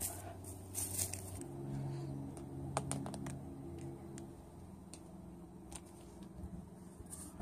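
Light, scattered clicks and taps of toy figures being moved and set down on a hard surface, over a faint low hum.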